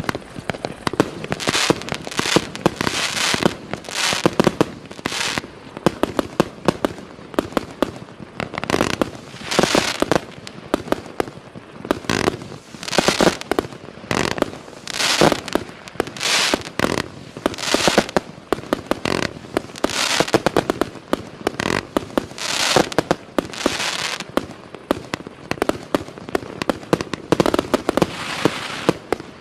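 A 186-shot multi-calibre firework cake firing: shots and bursts follow one another in quick, uneven succession, many a second, with louder clusters every second or two.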